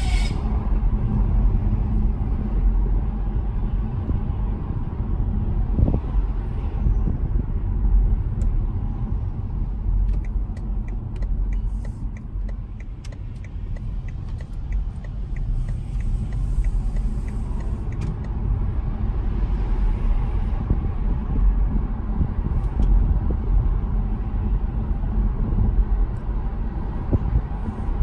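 Steady low road and running rumble inside the cabin of a BMW 530e on the move. Partway through, a run of quick, even ticks, about three a second, goes on for several seconds before stopping, likely the intermittent unexplained noise that the owner is trying to trace.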